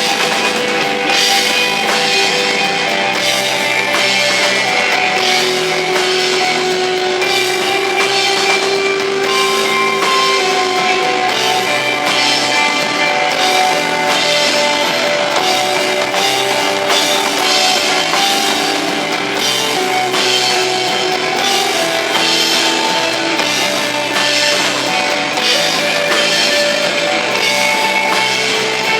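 Live rock band playing an instrumental passage: electric guitar sustaining notes over a steady drum-kit beat, picked up on a camcorder's built-in microphone.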